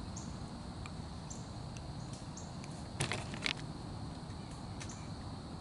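Quiet forest ambience: a short high bird chirp repeating about once a second over a steady low hiss, with two sharp clicks about half a second apart around three seconds in.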